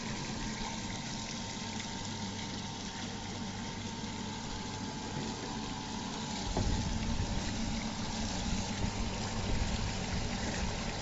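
Rice washing machine running with water: a steady machine hum under water churning and flowing. About six and a half seconds in it gets a little louder, with more low rumble.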